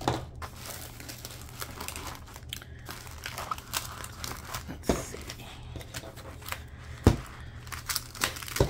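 Stiff diamond-painting canvas and its paper sheets crinkling and rustling as they are rolled back the other way by hand, with a few sharp knocks against the table, the loudest about seven seconds in.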